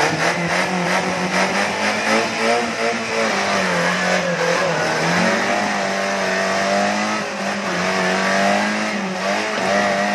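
Off-road 4x4's engine revved hard and held at high revs under load as it climbs out of a muddy ditch. The pitch sags briefly twice, about halfway through and near the end, then comes back up. There is some clattering in the first couple of seconds.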